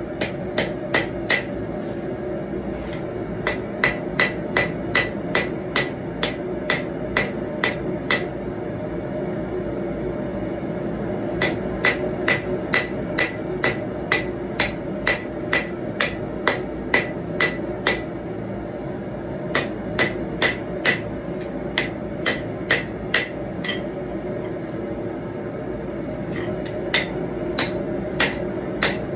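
Straight-peen hammer striking red-hot knife steel on an anvil, in runs of blows about two a second with short pauses between runs. The blows are drawing down the blade's integral guard.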